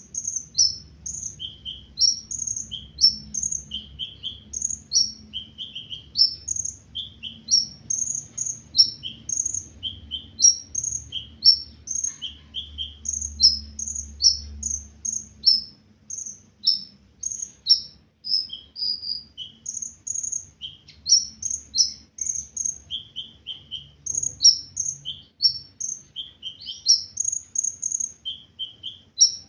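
A sunbird, kept in Indonesia as the 'ninja hummingbird', singing a fast, continuous run of short high chirps and down-slurred notes, several a second. This is full song from a bird back in singing form.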